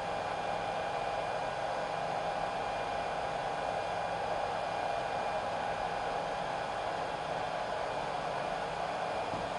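Hot-air blower of a BK200S BGA rework station running steadily, blowing heated air through its 15×15 top nozzle onto an iPhone 6 board: an even rushing hiss with a faint steady whine.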